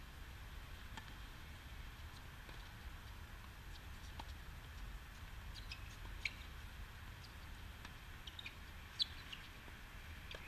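Quiet outdoor tennis court: scattered short bird chirps and a few sharp pops of tennis balls struck by rackets, the loudest about nine seconds in, over a low steady rumble.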